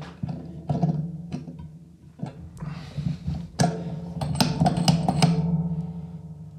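Plucked-guitar background music, with clicks, scrapes and rattles of a thin 2 mm metal rod being bent in a small bench vise. The strokes come thick and fast in the second half.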